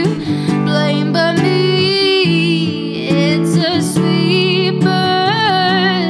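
A woman singing long, wavering notes over acoustic guitar accompaniment.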